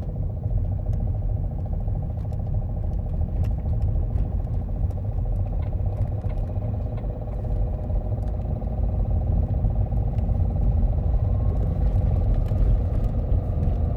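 Opel Astra H 1.7 CDTI four-cylinder turbodiesel engine running with a knocking clatter. The owner notes that the knock follows engine speed and is there both cold and warm.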